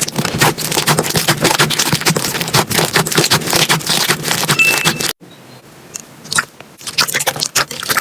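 Slime being squeezed and poked by hand close to the microphone: a dense run of small wet clicks and pops. It cuts off about five seconds in, then the clicking picks up again.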